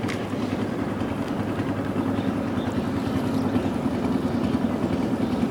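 A boat engine running steadily, a low fluttering hum that gets a little louder about two seconds in.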